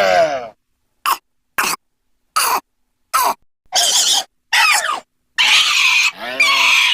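A string of short, separate vocal-like sound effect clips, grunts and cough-like noises, about seven in quick succession, each cut off by dead silence. The last, longer one starts about five and a half seconds in.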